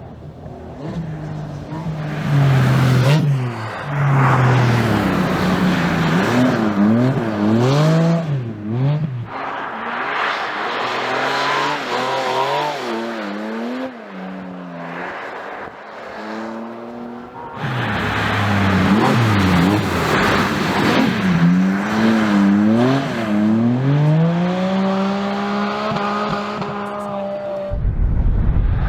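Porsche 718 Cayman GT4 RS's naturally aspirated flat-six revving up and down repeatedly while drifting, with tyre noise mixed in. Near the end it holds one long rising pull before cutting off sharply.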